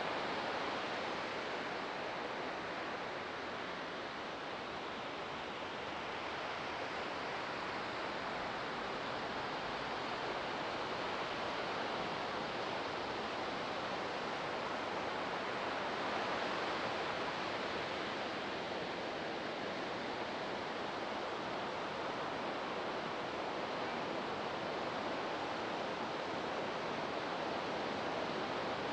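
Ocean surf breaking and washing up a beach: a steady hiss of waves that swells and eases slowly.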